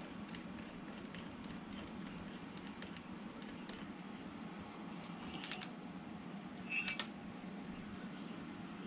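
Light metallic clinks and clicks of steel clamp hardware being handled as the workpiece is unclamped on a milling machine table. A few single clicks, then two short clusters of clinks about halfway through and about seven seconds in, over a steady low hum.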